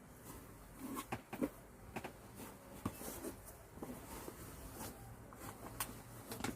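Light handling noises from unpacking items out of a box: scattered rustles, small taps and clicks, irregular, a few slightly louder ones about a second in and near the end.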